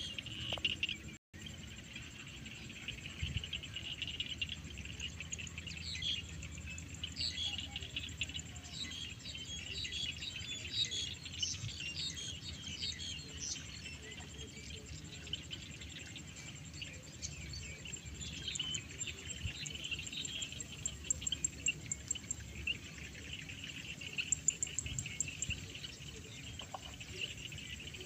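Field ambience of small birds chirping and twittering over a steady high insect drone, with a low rumble underneath. The chirping comes in busy clusters, thickest about a third of the way in and again near the end.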